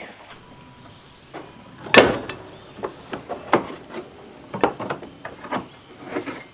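Knocks and clatter of tools and metal parts being handled while the sawmill is being taken apart for a belt and guide-disc change, with one loud knock about two seconds in and a run of smaller knocks after.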